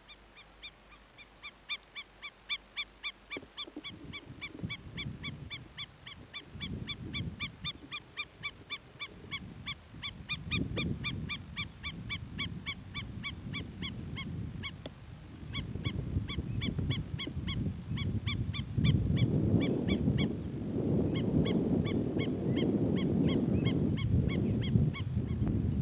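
A bird giving an alarm call over and over, short shrill notes at about four a second with a few brief pauses. A low rushing noise builds beneath it and is loudest near the end.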